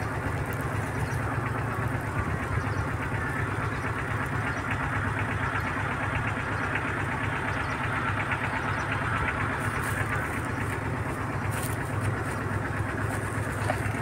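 An engine running steadily at constant speed, a low, even drone.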